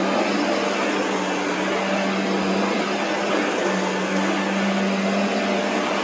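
Royal upright vacuum cleaner running while it is pushed over carpet: a steady motor hum over an even rushing noise.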